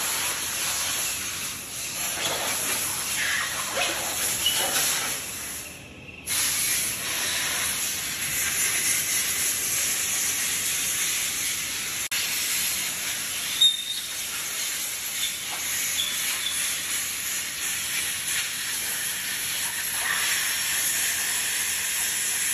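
Steady high hiss of rubber-moulding workshop noise, briefly dropping away about six seconds in, with one short sharp click partway through.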